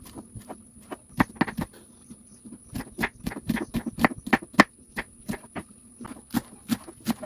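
A run of quick, irregular sharp knocks, several a second, busiest in the middle.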